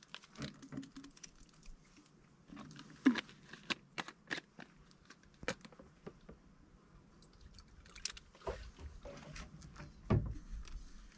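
Light clicks, taps and crinkles of plastic bottles, lids and paper packets being handled, with a heavier dull knock about ten seconds in.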